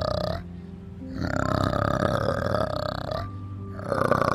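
Adult male orangutan calling: rough, rapidly pulsing vocal bouts, broken twice by short pauses, about half a second in and a little past three seconds.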